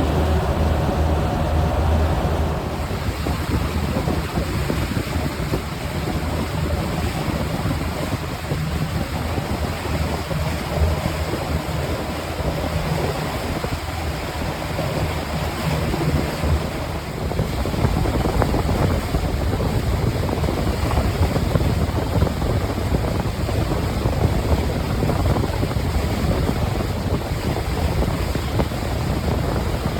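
A motorboat's engine runs steadily, with water rushing past the hull and wind buffeting the microphone. About halfway through, the steady engine hum gives way to a rougher, louder rush of water and wind.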